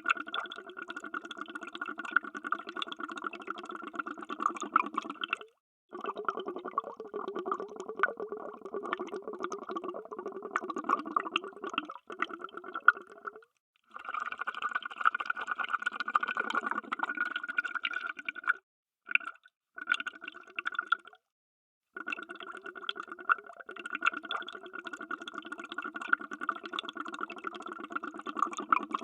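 Underwater bubbles: a dense, rapid stream of bubbling, cut into separate takes by several brief silent gaps.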